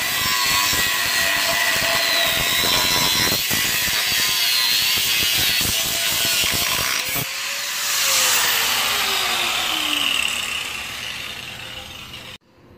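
Angle grinder with a cutting disc cutting through a steel upper control arm (A-arm), the disc's pitch wavering under load. About eight seconds in it is released and its whine falls steadily as the disc spins down.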